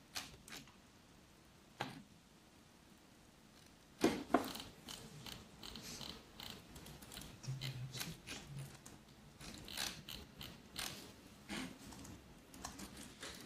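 Computer keyboard keys clicking in irregular runs of typing, sparse at first and then steady, with two louder knocks about four seconds in.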